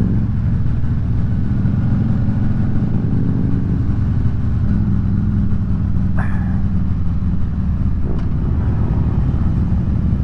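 A pack of Harley-Davidson V-twin motorcycles riding together, their engines rumbling at different revs and out of sync with one another, with the rider's own Electra Glide loudest.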